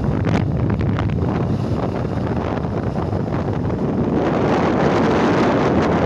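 Wind buffeting the microphone of a phone carried along at speed: a steady rumbling rush that grows heavier about two-thirds of the way through.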